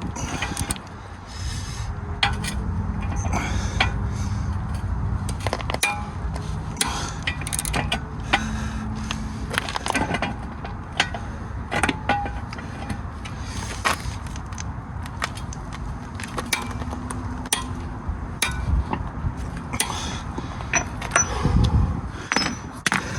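Scattered metal clinks and knocks of tools and car parts being handled, over a steady low rumble.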